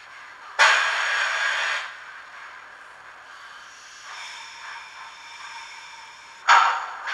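Sound decoder in a ROCO HO-scale Taurus electric locomotive model playing its sounds through the model's small speaker while standing: a loud hiss about half a second in that lasts about a second, then a quieter steady hum with faint tones starting a little past three seconds. Another sudden loud hiss comes near the end.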